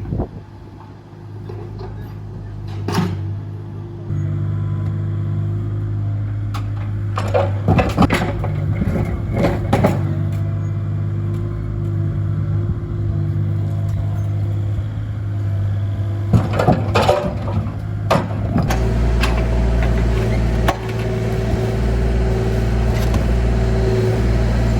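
Diesel engine of a compact construction machine running under load, its pitch and level stepping up twice, with several sharp clanks and knocks as concrete is broken up and moved.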